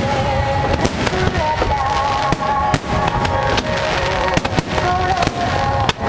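Aerial fireworks shells bursting in rapid succession, many sharp bangs and crackles, with music playing under them.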